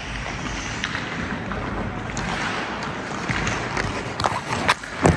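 Ice skate blades scraping and carving across rink ice in a steady hiss, with several sharp clacks in the last second or so.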